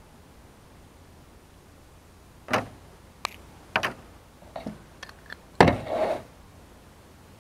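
A series of knocks and clatters as a glass pan lid and a silicone spatula are handled on a car's sheet-metal roof. The loudest, about three-quarters of the way through, is the glass lid being set down on the roof, with a short ring.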